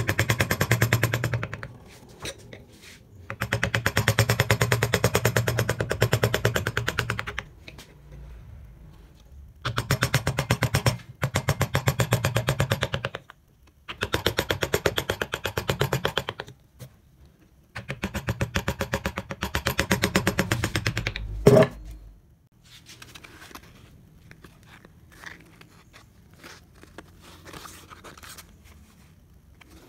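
Wood-carving chisel driven into the wood by quick, light mallet taps, coming in bursts of a few seconds with short pauses between them. A single louder thump ends the last burst, and after that there is only faint scraping on the wood.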